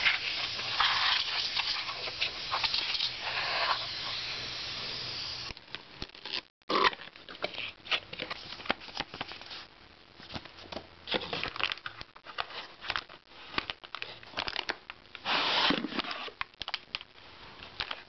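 Plastic and paper packaging being handled as a new hard drive is unpacked, crinkling and rustling. It is a continuous rustle for about the first five seconds, then, after a brief break, a run of sharper crackles and clicks with a louder swish near the end.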